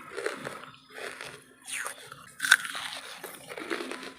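Close-miked biting and chewing of wood charcoal: irregular crisp crunches as pieces crack between the teeth, with the sharpest crunch about two and a half seconds in.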